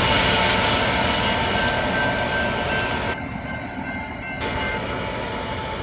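Freight train rolling past, the rumble and rail noise of grain cars on the track, with a few thin steady tones over it. The sound slowly fades as the train moves on.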